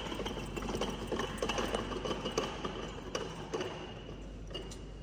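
Metal equipment being handled and adjusted: irregular clicks and rattles, thinning out near the end.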